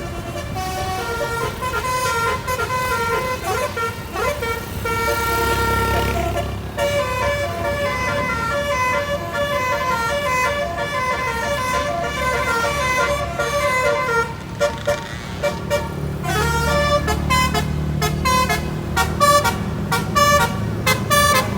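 A bus's basuri 'telolet' horn, a multi-trumpet musical air horn, playing a tune in stepped notes. In the last few seconds the notes turn short and rapid, over the low running of the bus engine.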